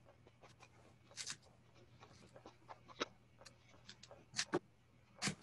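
Felting needle stabbing again and again through black wool roving into a foam pad: faint, irregular scratchy pokes.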